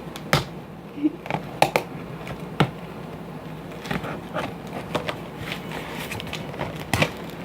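Irregular sharp clicks and crackles of a phone box's packaging being cut open and handled.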